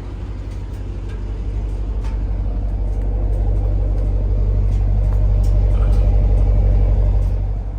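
Dodge Durango SRT's 6.4-litre HEMI V8 running with a steady low drone through its newly fitted exhaust, which has made it quiet. The drone grows louder over several seconds, then falls away near the end.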